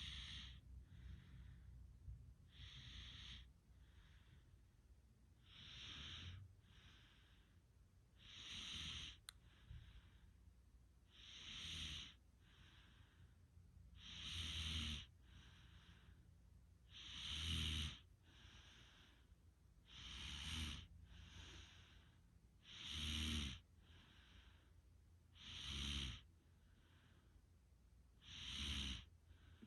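Faint snoring of a sleeper: slow, regular breaths about every three seconds, each loud breath followed by a softer one. From about halfway in, the loud breaths carry a low rattling buzz.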